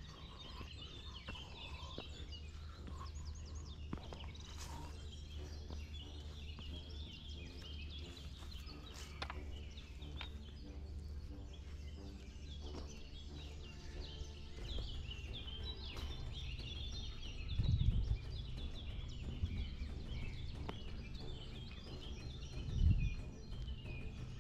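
Small birds chirping and twittering continuously over a steady low rumble, with two short low thuds, one about two-thirds of the way through and one near the end.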